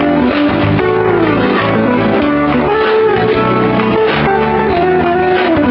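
Guitar-led music playing steadily, with held notes that slide down in pitch several times over a low bass part.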